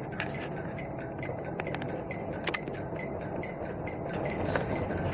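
Steady background hum of a large indoor hall with scattered sharp taps and clicks. The loudest is a quick pair of clicks about halfway through, and a brief hiss comes near the end.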